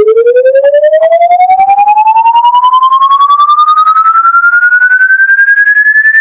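Electronic tone sliding slowly and steadily upward in pitch, from a low hum to a high whistle, fluttering rapidly in loudness; it is a sound effect played to make dogs tilt their heads.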